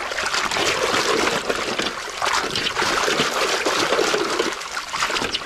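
A hand swishing and scrubbing a toy truck in a basin of muddy water: constant splashing and sloshing.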